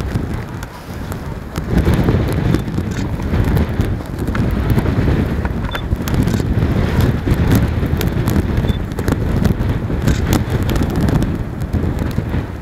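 Wind buffeting the microphone, a loud uneven low rumble throughout. Scattered faint clicks and a few brief high pips sound over it.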